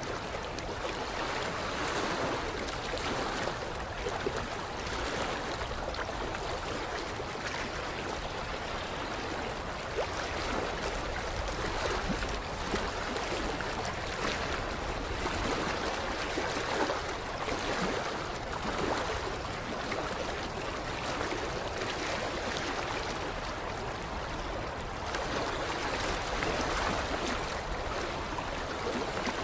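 Creek water lapping against the shoreline: a continuous watery wash that swells and eases every second or two, with small splashes and trickles.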